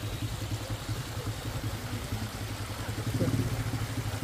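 A vehicle engine idling steadily, with a brief swell about three seconds in.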